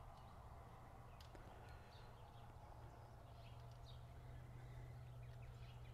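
Near silence: a low steady hum with a few faint bird chirps.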